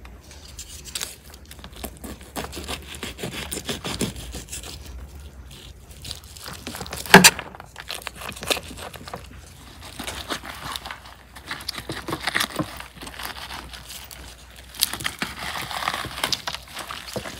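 Knife cutting through the crisp, charred skin and meat of a whole roasted lamb, with many small cracks and clicks as the crust breaks. One loud sharp knock comes about seven seconds in.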